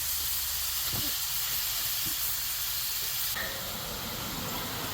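Flour-dredged deer meat frying in hot grease on a camping griddle: a steady, dense sizzle that drops off abruptly about three seconds in. A couple of faint knocks sound under it.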